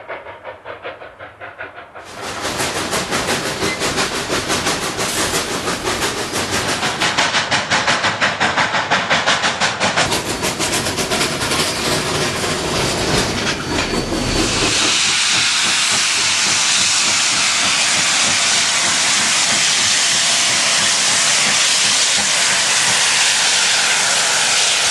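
Steam locomotive exhaust chuffing in regular, closely spaced beats, heard from the cab of Rio Grande K-36 2-8-2 #488. About fifteen seconds in the beats give way to a steady, loud hiss of steam.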